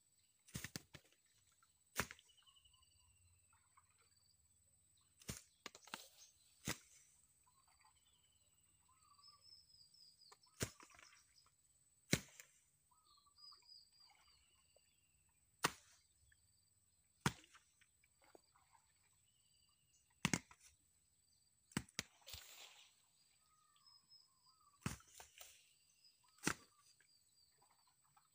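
Sharp knocks of whole coconuts being tossed onto a pile and striking one another, coming irregularly about once every second or two. Short bird chirps and a steady high whine carry on between the knocks.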